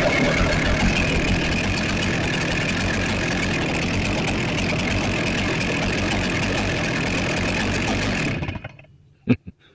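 Holzfforma G888 two-stroke chainsaw idling steadily while running rich, then shut off about eight and a half seconds in, the engine dying away quickly. A couple of short knocks follow near the end.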